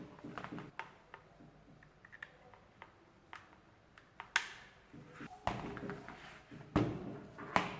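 Irregular clicks, taps and knocks of hands handling a mechanical keyboard and its packaging, some with a short rustle, the loudest knocks coming in the second half.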